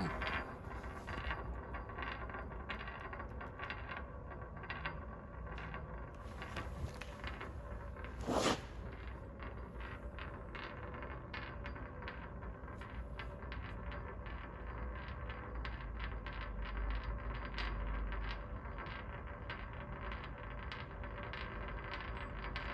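Small machined metal spinning top clicking and rattling rapidly and irregularly on a hard surface, with one louder sharp knock about eight seconds in. The top is too top-heavy and wobbles over quickly.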